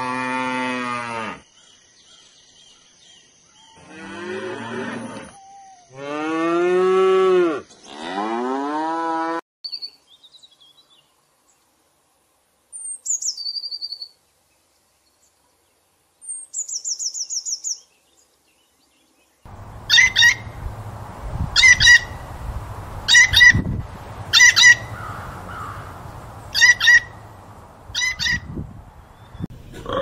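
A sequence of different animal calls. First come several long, drawn-out pitched calls. After a short silence there are brief high whistled notes, then a short call repeated about every second and a half over a noisy background.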